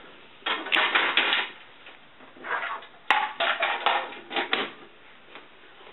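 A 16mm film reel being pulled off the projector arm and placed in its canister: clattering and knocks, with one sharp click a little after three seconds in.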